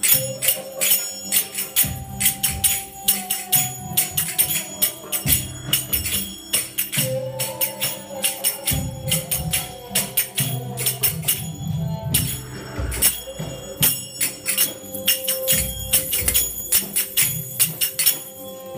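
Dance music with a steady low beat and a held melody, over which finger cymbals (zills) clink in a quick, even rhythm.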